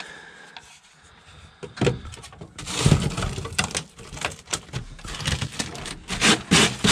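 Hands scraping and rubbing loose rust scale and dirt on a rotted-through car floor pan. From about two and a half seconds in it is a busy run of small scrapes and clicks.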